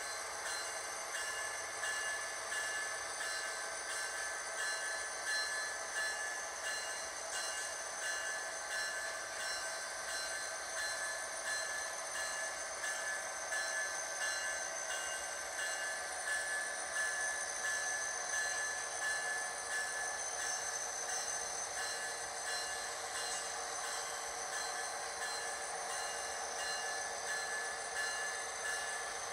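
Sound-equipped model diesel locomotive running steadily, its engine sound played through a small onboard speaker: thin, with no deep bass and no change in pitch.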